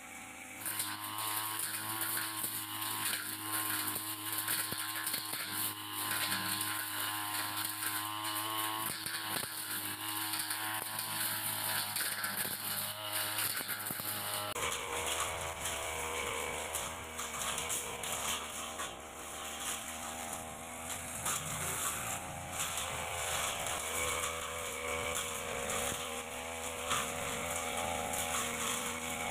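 Backpack brush cutter's small petrol engine running steadily at cutting speed, with the blade cutting through light grass and weeds. The engine's steady drone sets in about a second in.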